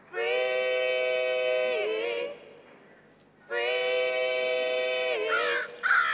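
A solo voice sings two long held notes of about two seconds each, unaccompanied, each note steady in pitch and then sliding down at its end. Shorter sung phrases follow near the end.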